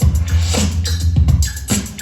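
Funk dance track playing: a heavy bass line under a steady drum beat of about two strokes a second, with crisp hi-hat over it.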